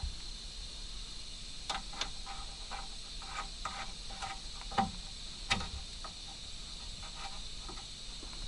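Light metallic clicks and clinks of hand tools working on suspension parts, a few a second and irregular, with two louder knocks near the middle, over a steady high hiss.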